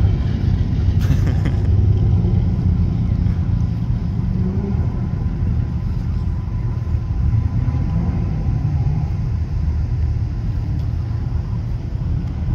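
A Ford Mustang's engine running as the car drives an autocross cone course, heard as a steady low rumble.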